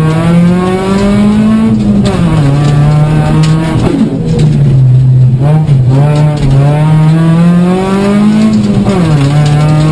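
Toyota Corolla 1.6 rally car's four-cylinder engine at racing revs, heard from inside the cockpit. The revs climb for about two seconds and drop sharply, dip again around four seconds in, then climb steadily and drop once more near the end, as the driver changes gear and lifts for corners.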